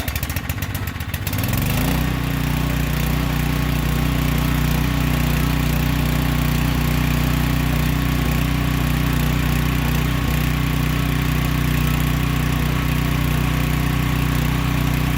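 Small gasoline engine of a portable generator catching and coming up to speed within about two seconds, then running steadily.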